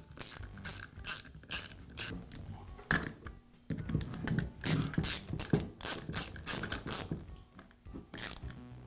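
Hand ratchet clicking in quick, irregular runs as it turns in the screws that hold a nail gun's nose piece, with some handling knocks of metal on the tool.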